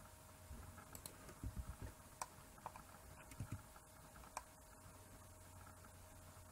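Faint computer keyboard keystrokes and mouse clicks: a handful of light, scattered clicks and soft taps over low background hiss.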